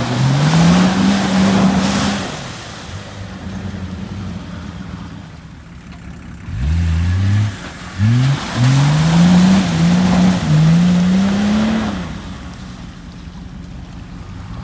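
Off-road 4x4's engine revving hard while climbing a muddy track, tyres spinning and throwing dirt. One rising rev at the start, a quieter stretch of low running, then from about halfway a series of rising revs in quick succession that drop away near the end.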